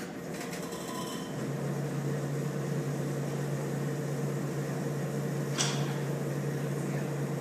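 A steady low machine hum that comes in about a second and a half in and holds, over room noise, with one short hiss about five and a half seconds in.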